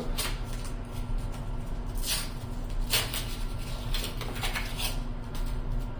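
A few short rustles and soft knocks of handling, over a steady low hum.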